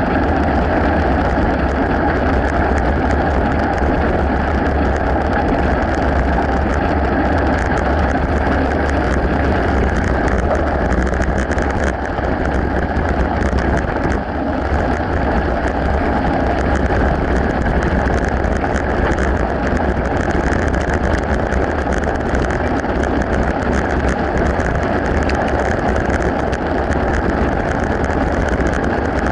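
Steady rushing noise from a camera on a moving mountain bike: wind buffeting the microphone with a low rumble, tyre noise on gravel and asphalt, and many small rattling clicks from the bike and mount.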